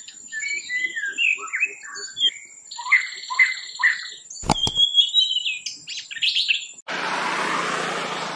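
Small birds chirping in quick, varied calls over a thin, steady high whine, with one sharp click about four and a half seconds in. Near seven seconds the birdsong cuts off abruptly and is replaced by a steady, even hiss-like noise.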